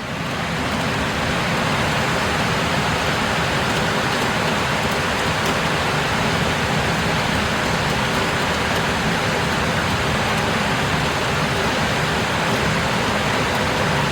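Rain pouring down steadily during a thunderstorm, heard through an open window.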